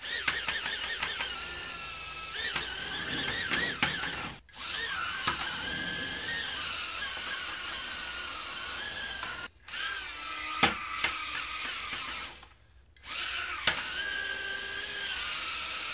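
Micro ducted quadcopters (Furibee F36, then JJRC H36) flying: their tiny brushed motors and propellers make a high whine whose pitch wavers with the throttle. The sound cuts out three times, and there are a couple of sharp knocks.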